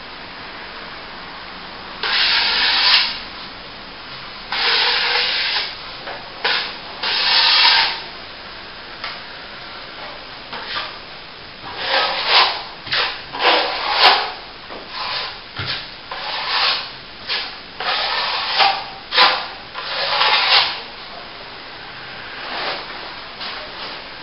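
Steel plastering trowel scraping and smoothing a wet top coat of plaster. A few long strokes come first, then a run of shorter, quicker strokes.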